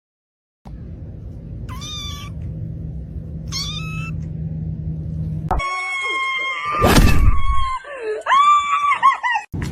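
A cat meowing twice, short calls over a steady low hum. Then, after a cut, louder, longer meows and yowls broken by a loud burst of noise about seven seconds in.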